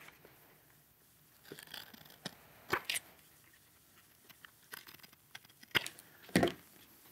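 Faint, scattered handling noises: a few short paper rustles and light clicks as a small booklet is handled, with quiet gaps between them.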